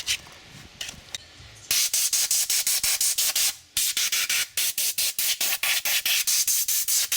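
Rear differential housing being scrubbed clean with rapid back-and-forth rasping strokes, about five a second, which start a couple of seconds in and pause briefly around the middle.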